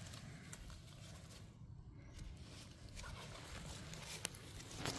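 Faint rustling and crackling of dry leaves and twigs on the forest floor as mushrooms are picked by hand, with a few small sharp clicks, a short louder rustle near the end, and a low steady rumble beneath.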